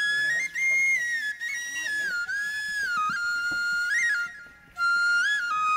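Background music: a solo flute plays a slow melody of held notes joined by quick turns. It pauses briefly about four and a half seconds in.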